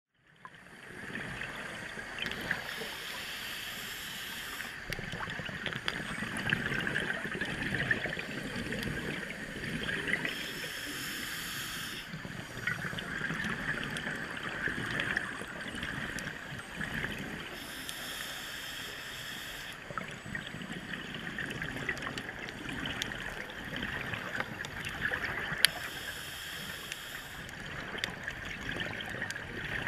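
Scuba diver's breathing through a regulator, heard underwater through a camera housing: a muffled, steady bubbling, with a louder hiss of exhaled bubbles returning about every eight seconds.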